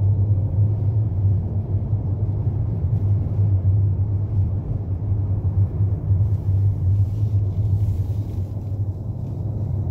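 Steady low rumble of a car driving, engine and road noise heard from inside the cabin, with a faint hiss joining in the second half.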